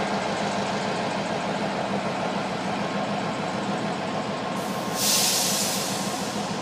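Diesel switching locomotive's engine running with a steady drone as it pulls away slowly. About five seconds in comes a loud hiss of released air from its air brakes, lasting about a second and a half.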